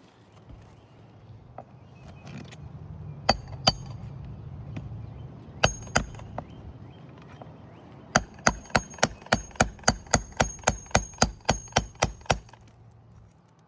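16-ounce Craftsman hammer striking metal on a shingle roof, driving nails or the roof snake: two pairs of ringing blows, then a rapid even run of about sixteen blows at roughly four a second.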